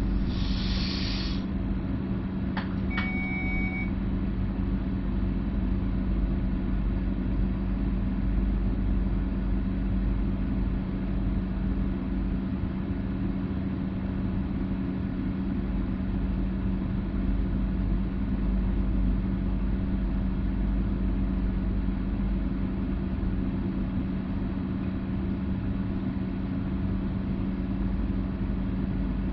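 Stadler FLIRT Sm5 electric multiple unit heard from inside the driver's cab: a steady electrical hum and rumble. A short hiss comes at the start, and a couple of clicks with a brief tone come about three seconds in.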